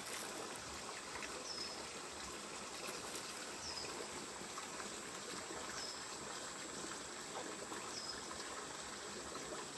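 Stream water running steadily, with a short high chirp repeating about every two seconds.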